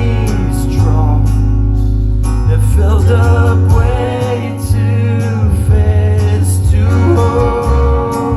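Live band playing a song: guitar, bass and drums with singing, loud and continuous.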